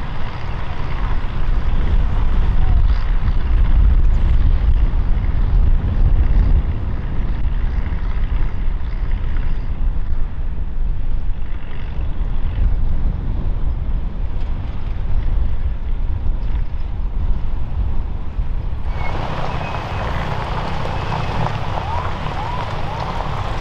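Heavy low rumble of wind buffeting the microphone, mixed with the engines of off-road vehicles driving across the field. About 19 seconds in the sound changes abruptly to a brighter hiss.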